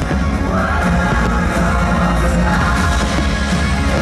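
Loud show soundtrack music with singing over a heavy, steady bass line.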